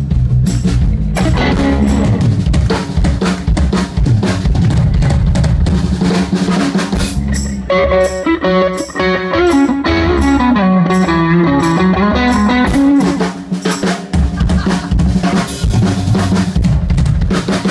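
Live rock band playing, the drum kit prominent with bass drum and snare hits. A melodic lead line joins in the middle, bending up and down for about five seconds.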